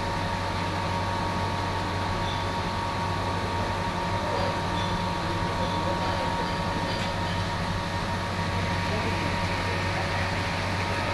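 A steady mechanical hum with a constant whine, over water running from a tap and splashing onto a tiled floor.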